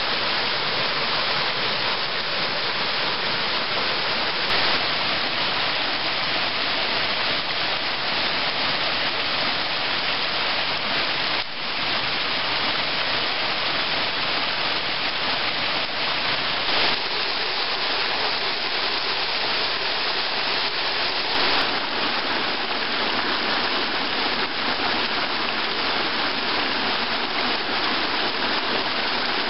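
Shallow rocky forest stream running over stones and a small cascade: a steady rush of water.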